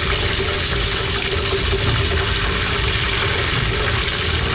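Breaded mozzarella deep-frying in hot canola oil, a steady, dense sizzle. The cheese has begun to leak out at the edges of the breading, the sign the pieces are done.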